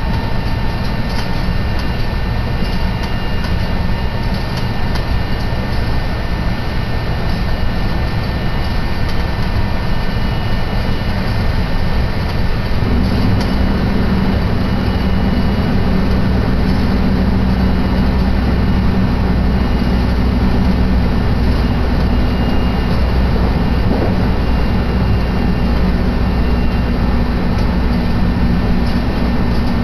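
Running noise of a JR Kyoto Line electric commuter train heard from inside the passenger car: a steady rumble of wheels and motors on the track. About halfway through, the deep rumble becomes louder.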